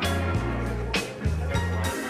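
Background music with a bass line and a steady drum beat, a drum hit about once a second.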